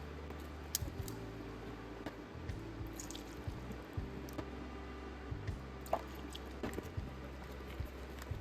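Wet red velvet cake batter being worked, squishing and dripping, with scattered light clicks and ticks, over a faint steady background hum or music.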